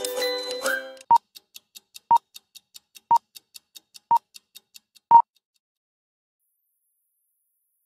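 Film-leader countdown sound effect: five short, steady-pitched beeps a second apart over light projector-like ticking, about five ticks a second, the last beep the loudest. A whistled tune ends about a second in as the countdown starts.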